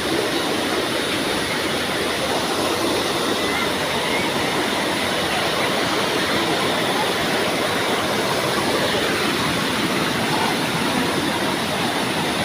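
Waterfall: falling water rushing steadily and evenly, without a break.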